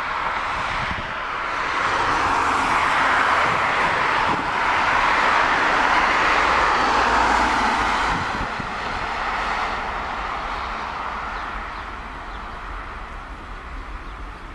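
Jet noise from the two engines of a Boeing 767-300ER at takeoff power as it climbs away. The noise swells over the first couple of seconds, holds loud through the middle, then slowly fades.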